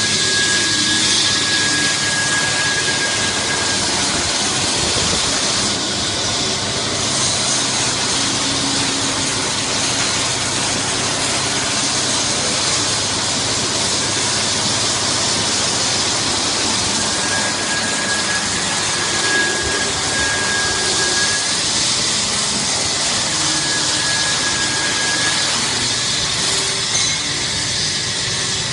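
Christ C100 rollover car wash at work on a car: water spraying from the gantry and rotating brushes scrubbing the body, a steady loud rushing noise. A thin high whine comes and goes, at the start, about two-thirds of the way through and again shortly after.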